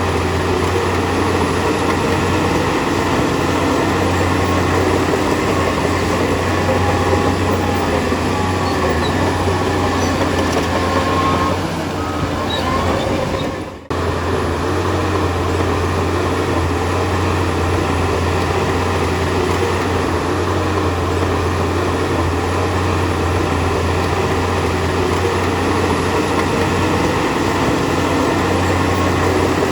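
Bulldozer diesel engine running steadily under load, with a strong low hum and a rattling clatter. The sound dips around twelve seconds in and breaks off sharply near fourteen seconds, then carries on as before.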